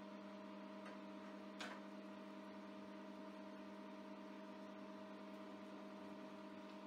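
Steady, faint electrical mains hum, with one light click about one and a half seconds in.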